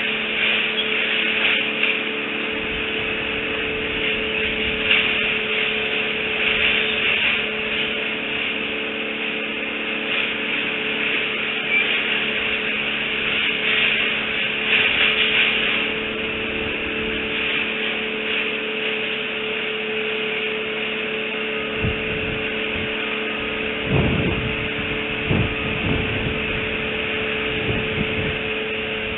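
Outdoor nest-camera microphone ambience: a steady electrical hum under a hiss that swells and fades. Several low thumps come near the end.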